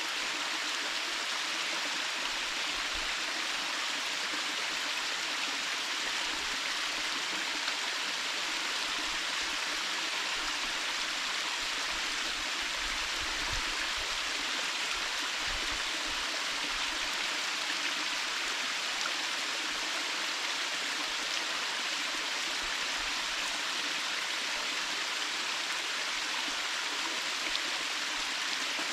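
Waterfall of many thin streams of water falling and splashing: a steady, even rush of water that does not change.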